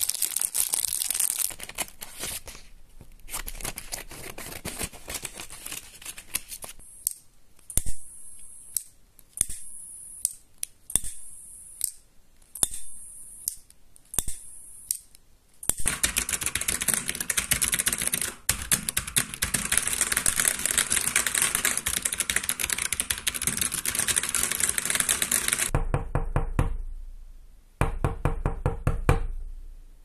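A run of separate sound effects: paper crinkling and rustling, then a lighter struck repeatedly, then fast typing on a computer keyboard for about ten seconds, then knocking near the end.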